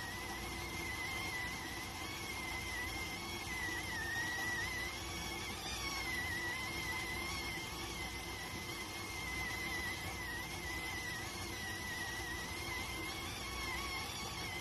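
Electric rice cooker whistling steadily as steam escapes during cooking: one high, slightly wavering whistle over a soft hiss.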